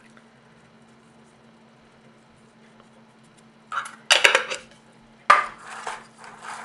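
Metal spoon clattering and scraping against a stainless steel mixing bowl as a thick, moist cauliflower crust mixture is stirred. It begins with a clatter about four seconds in, then a sharp knock and a run of scraping strokes.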